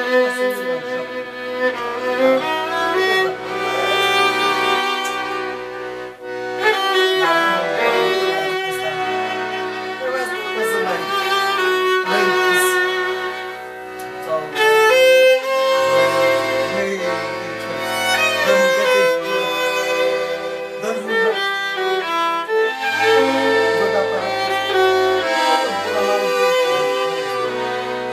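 Violin playing a melody over accordion accompaniment, the accordion holding low bass notes that change in steps. The tune runs on with brief breaks between phrases.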